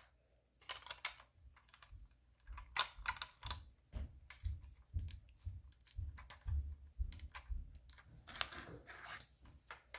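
Plastic toy bricks clicking and rattling as a brick-built model plane is handled, with many short, sharp clicks and low bumps from the pieces being knocked.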